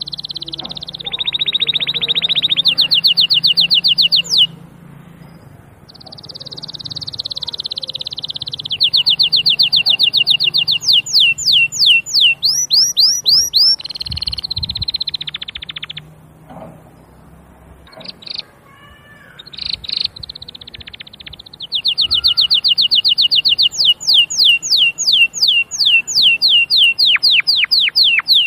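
Domestic canary singing: long rolls of rapid, evenly repeated trilled notes and quick pitch sweeps, high-pitched, with two brief pauses between phrases, one about five seconds in and another about two-thirds of the way through.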